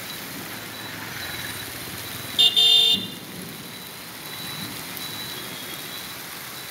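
Steady hiss of heavy rain and car tyres on a wet road, with a car horn honking twice, a short toot and then a longer one, about two and a half seconds in. The horn is the loudest sound.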